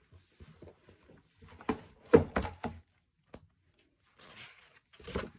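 A boxed chalk-art kit being unpacked by hand: a cluster of knocks and thuds as the booklet and plastic tray of markers are handled, about two seconds in, then a brief rustle and another knock near the end.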